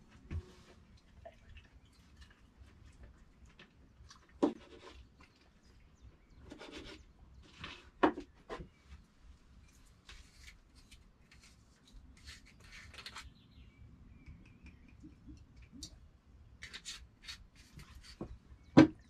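Food-preparation handling sounds at a wooden cutting board: a few sharp knocks, the loudest near the end, with short dry rasping bursts between them.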